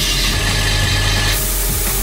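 Wheel repair lathe turning an alloy wheel under the cutting tool while its air-cooling nozzle blows a loud, steady hiss of compressed air at the cut to clear aluminium chips. The hiss eases about a second and a half in, over a low steady hum.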